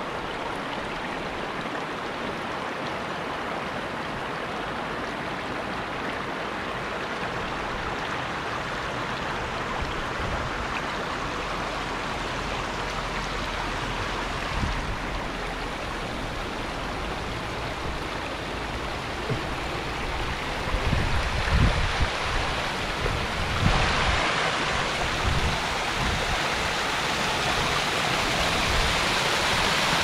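Rushing water of a cascading mountain creek, a steady hiss that grows louder about three-quarters of the way in. A few low bumps come shortly before that.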